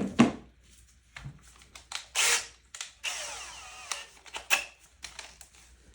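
Power drill with a 1/8-inch bit boring a small hole into parquet flooring: a brief run with a motor whine that shifts in pitch about three seconds in, among handling clicks and knocks.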